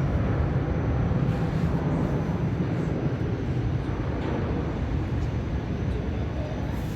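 Steady, deep rumbling roar of an Airbus A330neo's Rolls-Royce Trent 7000 engines at take-off power, easing slightly toward the end.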